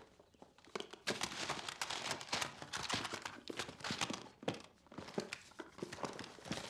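Hands rummaging through a floor safe: papers rustling and crinkling, with many small knocks and clicks as objects are shifted and pulled out.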